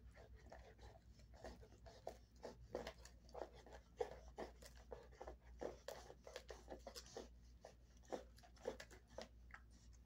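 Dog gnawing on a dried beef cheek roll: faint, irregular crunching and clicking of teeth on the hard chew, several times a second.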